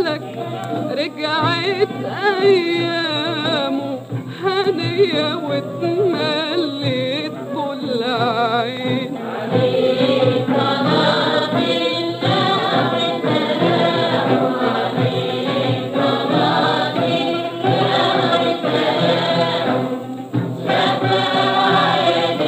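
1938 Baidaphon 78 rpm recording of an Arabic song: singing with a wide vibrato over an ensemble, the texture growing fuller, with a chorus, from about ten seconds in. The sound is dull, lacking its highs, as an old disc does.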